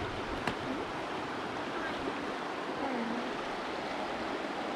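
Steady rush of Delaware River current around a raft, with faint voices under it and a single sharp knock about half a second in.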